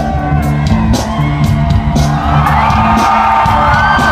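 Live rock band playing loud: electric guitar, bass and a steady drum beat about two hits a second, with the crowd shouting and whooping over it.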